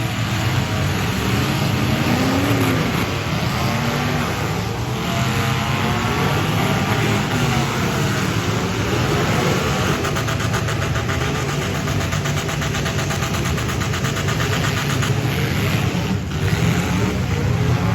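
Several demolition derby cars' engines revving at once, their pitches rising and falling as they accelerate and back off, with a stretch of fast, rapid-firing engine pulses in the middle.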